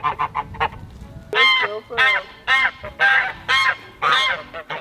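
Domestic geese honking: a quick run of short calls at first, then a string of about seven loud, arching honks from about a second and a half in.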